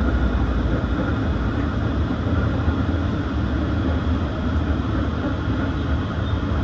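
SEPTA PCC II streetcar running along the track, heard from inside the car at the front: a steady low rumble from the wheels on the rails and the running gear.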